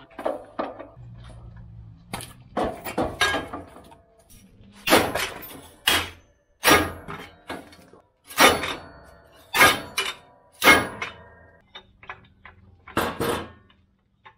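Steel hitch parts of a baseball-field drag being knocked and clanked together, about ten sharp, irregular metallic clanks, each ringing briefly.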